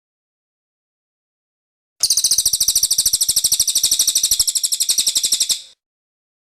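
A cililin bird singing a rapid, high trill of many evenly spaced notes. The trill starts after about two seconds of silence, lasts about three and a half seconds, and fades out at the end.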